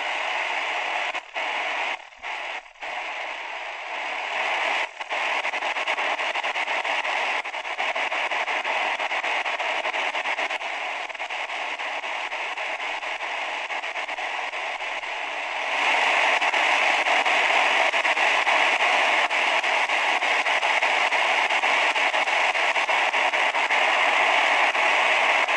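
Shortwave static hissing from the speaker of a SuperSonic portable world-band radio tuned to its second shortwave band, with no station coming through. The hiss cuts out briefly a few times in the first five seconds and gets louder about 16 seconds in.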